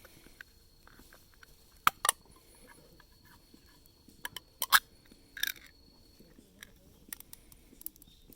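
Scattered sharp clicks and knocks of camp cookware and utensils being handled, the loudest about two seconds in and a cluster with a short scrape around five seconds in.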